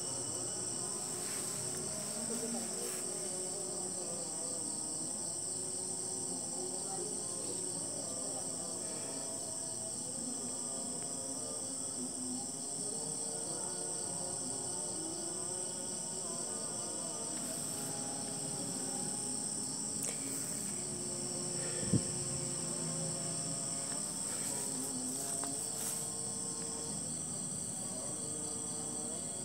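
A steady night chorus of crickets, a continuous high-pitched trill, with a single sharp click about three-quarters of the way through.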